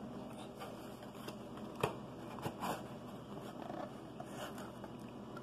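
A small cardboard mailer box being opened by hand, the lid lifted off: quiet rustling and scraping of cardboard with a few sharp taps, the loudest about two seconds in.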